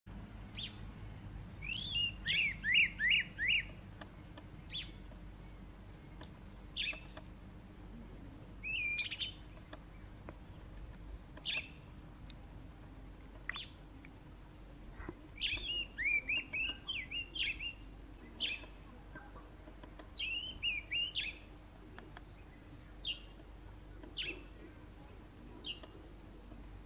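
Kurrichane thrush singing: short runs of rapid, slurred whistles alternating with single sharp, high whistled notes every couple of seconds.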